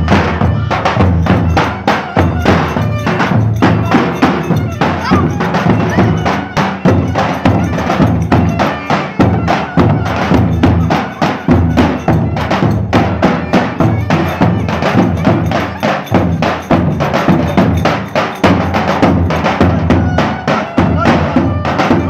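Davul bass drums beaten with sticks in a fast, steady dance rhythm, with a melody line playing over the drumming.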